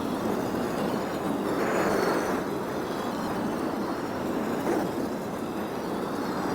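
Marbles rolling along a marble run track: a continuous rolling rumble that swells and eases, with a faint click a little before five seconds in.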